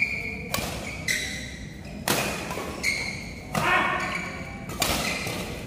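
Badminton rally: rackets hit the shuttlecock in a quick back-and-forth, a sharp crack about every second, with short high squeaks of shoes on the court floor between hits.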